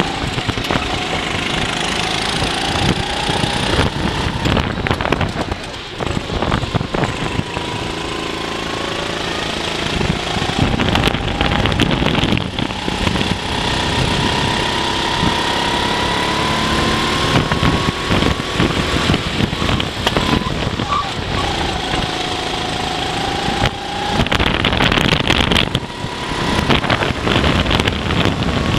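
Racing kart's Honda engine heard onboard at racing speed, its revs climbing along the straights and dropping off into the corners, over a rush of vibration and wind.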